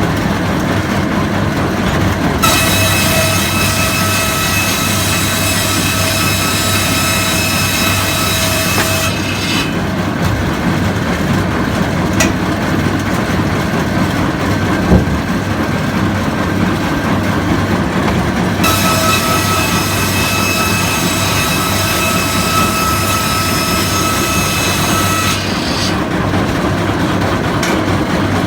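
Old Bolinder engine running steadily, driving a sawmill saw. The saw cuts through a log twice, each cut a high ringing whine lasting about seven seconds: one a couple of seconds in, the other past the middle.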